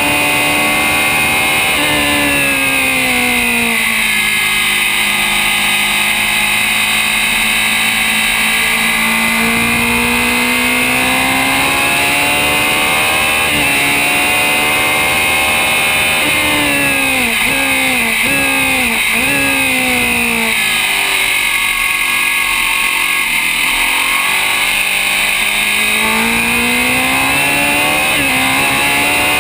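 Onboard sound of an open-wheel single-seater race car's engine at speed, revs falling as it slows for corners about two seconds in and again about twenty seconds in, and climbing on the straights between. Three quick gear changes break the engine note in quick succession around seventeen to nineteen seconds in.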